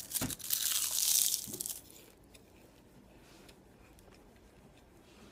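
A crisp, fully dried dehydrated kale chip being bitten and crunched between the teeth. A burst of crunching lasts about a second and a half, then gives way to faint chewing.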